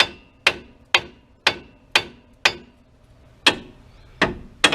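Hammer striking metal about nine times, at roughly two blows a second with a short pause near the middle, several blows leaving a brief metallic ring. The part being tapped is in a Ford F150's front suspension, being knocked loose so it comes out during a strut assembly replacement.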